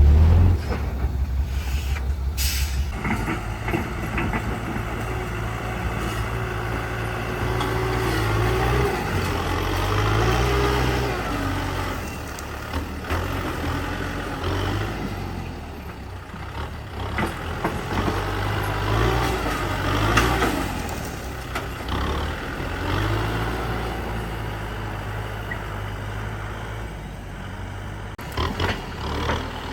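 Heavy diesel construction machinery working: engines running and rising and falling in load, with a short hiss about two and a half seconds in.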